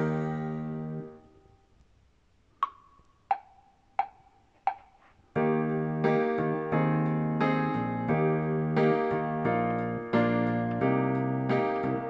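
Play-along accompaniment music from a CD, played on a Kenwood DPF-2030 CD player. A held chord fades out, then four short count-in clicks come about 0.7 s apart, the first one higher. The accompaniment then starts again with steady chords.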